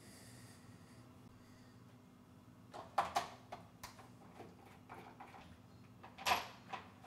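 Plastic clicks and knocks from the top engine cover of a Poulan Pro chainsaw as it is worked loose and lifted off. A quick cluster of sharp clicks comes about three seconds in, and a single louder knock near the end.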